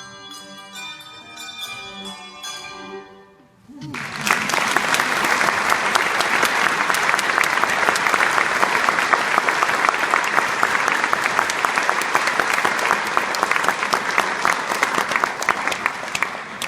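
Handbells ringing the last notes of a piece and dying away, then audience applause from about four seconds in, the loudest sound, fading near the end.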